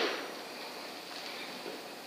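A short noisy rustle fades out at the very start, then a steady faint hiss of background noise.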